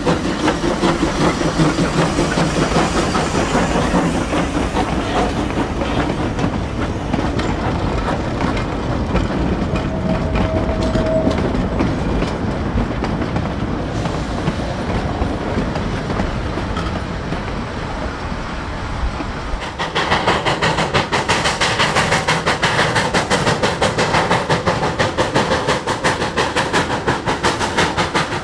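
Narrow gauge steam freight train on the move: the 1895 Baldwin C-18 consolidation locomotive working, with its cars rolling over the rails. A brief steady tone sounds about ten seconds in. About twenty seconds in, the sound switches abruptly to a louder run of quick, regular beats.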